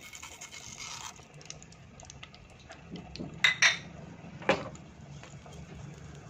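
Mustard seeds crackling in hot oil in a nonstick pan at the start of a tempering, with many small scattered pops. A few louder sharp clicks come about three and a half seconds in and again a second later.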